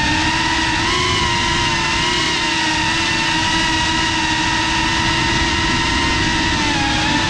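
FPV quadcopter's electric motors and propellers whining steadily, a high pitched hum over a rush of air, the pitch wavering slightly with small throttle changes.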